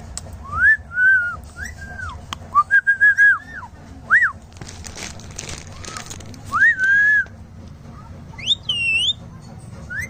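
Indian ringneck parakeet giving a string of short whistled calls, each a quick rising-and-falling note, some strung together in fast runs. About midway there is a rustle, and near the end a higher, harsher call.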